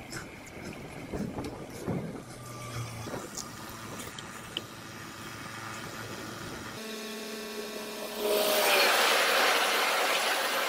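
Bicycle rolling over paving with small rattles and clicks, then stopped. A steady hum follows, and about eight seconds in a loud rushing noise of a passing train sets in, with a few tones sliding slightly down in pitch.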